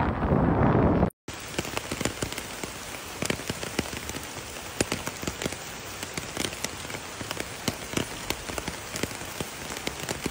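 Steady patter of sleet or rain hitting a surface, full of small sharp ticks. It starts after a brief cut about a second in; before the cut there is a louder, low, wind-like noise.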